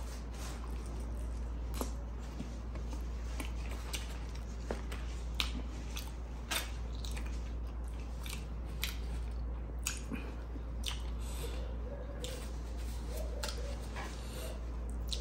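Close-miked eating of grilled chicken and rice by hand: chewing and biting with many short, sharp wet mouth clicks, over a steady low hum.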